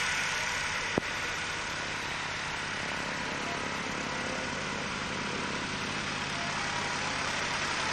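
Radial piston engine of a World War II warbird running at taxiing power, a steady idle-like engine note, with one sharp click about a second in.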